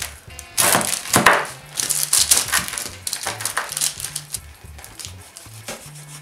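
Large kitchen knife cutting down through the crisp baked crust of a meat-and-potato-filled chudu: a run of crackling, scraping cuts, loudest in the first half, then fainter. Background music plays underneath.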